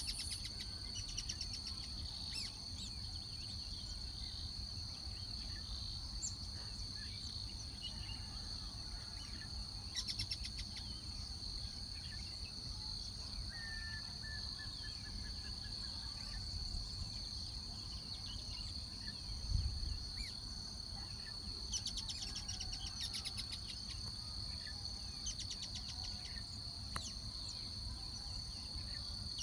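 Steady, unbroken high-pitched drone of insects such as crickets, with occasional short, rapid chirp trains and a brief call, likely from birds. A low rumble runs underneath, with one soft thump about two-thirds of the way through.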